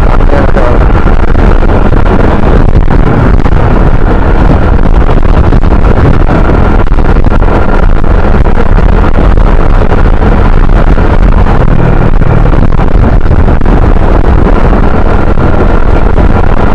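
Honda motor scooter riding along at road speed: its engine runs steadily under the rider's throttle, mixed with loud wind rushing over the microphone.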